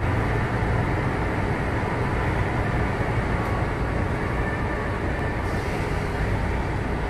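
Steady low hum and rumble inside a Yokohama Seaside Line 2000 series automated guideway car standing at a station with its doors open. A faint hiss joins about five and a half seconds in.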